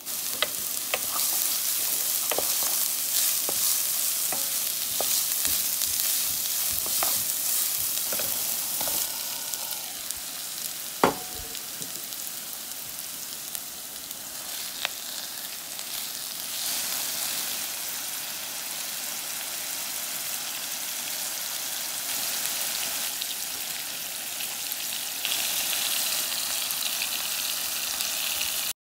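Garlic, then minced pork and onion, sizzling in oil in a nonstick frying pan, stirred with a wooden spatula. Scattered sharp knocks in the first half, the loudest about eleven seconds in, and the sizzle dropping and rising again a few times.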